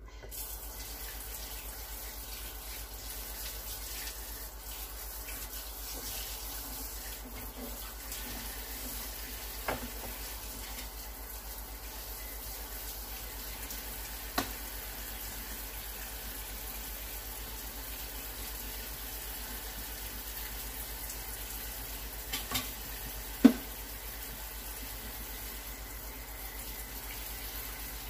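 Oil sizzling steadily around a plantain turnover deep-frying in a small pan, the oil not yet fully hot. A few short sharp clicks come through now and then, the loudest late on.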